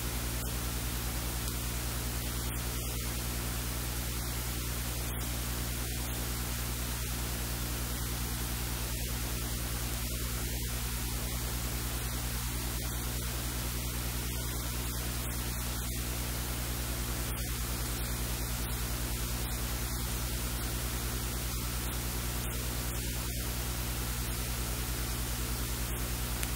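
Steady hiss with a low, even electrical hum underneath, unchanging throughout.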